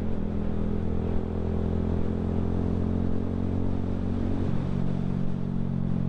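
Keeway Superlight 125 motorcycle engine running steadily while riding, with wind noise over it. The engine note shifts slightly about four and a half seconds in.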